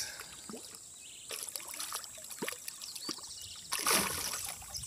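Light water sloshing and small knocks, with one louder rush of noise about four seconds in.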